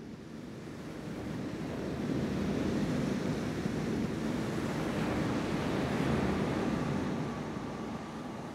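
Rushing surf-like noise of an ocean wave, mostly deep, swelling up over the first couple of seconds, holding, then ebbing away near the end.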